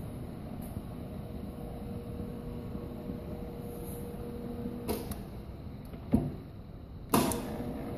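Hobart H600 60-quart mixer's electric motor and gearbox running empty in first gear with a steady hum. About five seconds in it clicks off and the hum drops away, a clunk follows as the gear lever is moved for second gear, and near the end a louder click brings the steady hum back.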